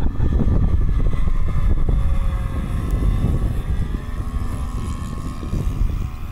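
Twin nitro glow engines of a radio-controlled Cub model airplane buzzing in flight, a steady whine that eases slightly about two-thirds of the way through, over a heavy low rumble of wind on the microphone.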